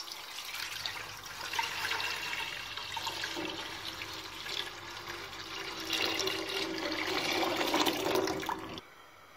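Milk pouring in a steady stream into a metal cooking pot as it fills; the pour stops abruptly near the end.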